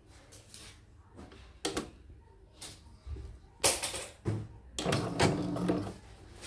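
Scattered clicks and knocks of small plastic and metal parts being handled at the bobbin area of a YOKO sewing/embroidery machine, as the bobbin and its cover are worked by hand.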